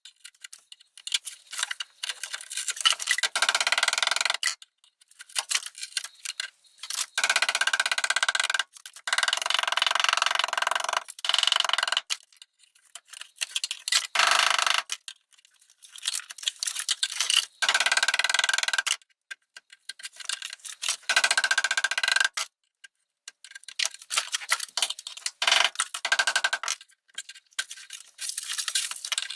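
Ball peen hammer's rounded back tapped rapidly on bitumen sound-deadening mat stuck to a car's sheet-metal floor, a fast run of ticking blows with a slight metallic ring. The blows come in spells of a second or two, broken by short pauses.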